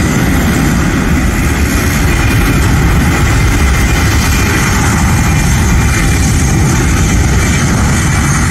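Boeing C-17A Globemaster III's four Pratt & Whitney F117 turbofans at takeoff power during the takeoff roll: a loud, steady low rumble with a hiss above it.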